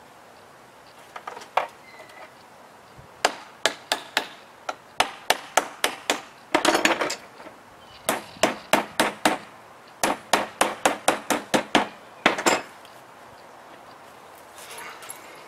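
Lid of a paint can being tapped shut: sharp knocks in quick runs of about three a second, with a short clatter about halfway through, stopping about twelve seconds in.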